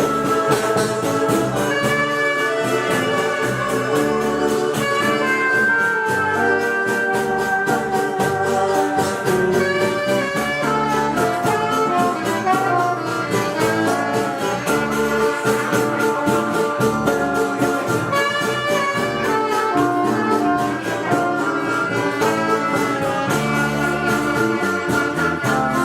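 Bolero music playing, a sustained melody over a steady accompaniment.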